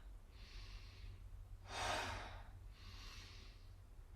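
A person breathing deeply in time with slow shoulder rolls: a soft breath in, a louder breath out about two seconds in, then another soft breath in. A faint steady low hum runs underneath.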